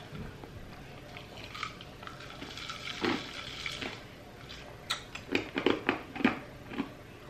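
Crushed ice being eaten from a cup: scattered sharp crunches and clicks, coming thick and fast about five to six seconds in.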